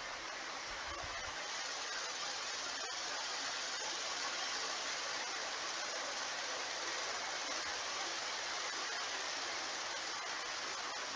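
Steady, even hiss of background noise with no distinct events, and a faint low rumble about a second in.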